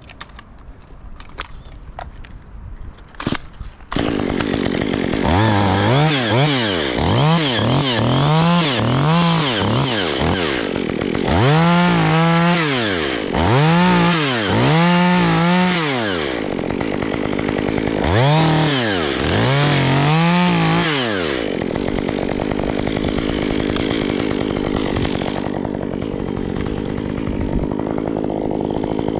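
A chainsaw comes on suddenly about four seconds in and is revved up and down over and over, about fifteen times, with a couple of brief held revs. It then settles to a steady lower-pitched run. A few sharp clicks come before it starts.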